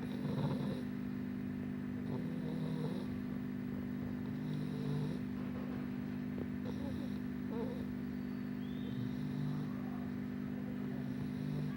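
English bulldog snoring in her sleep, a snoring breath about every two seconds over a steady low hum.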